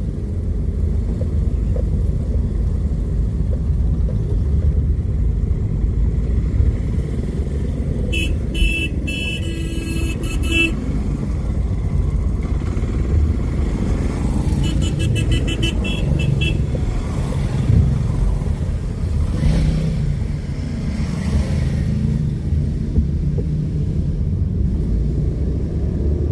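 Motorcycle engines running steadily, with horns honking over them: a long horn blast about eight seconds in and a quick run of repeated toots around fifteen seconds.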